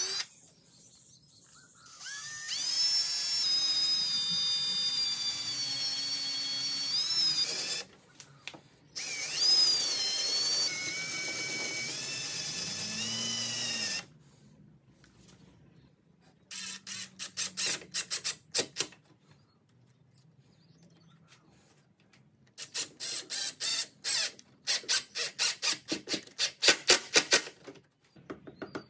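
Cordless drill boring into timber in two steady whining runs, the second starting about 9 seconds in, then an AEG cordless impact driver driving screws into the wood in two spells of rapid hammering clicks.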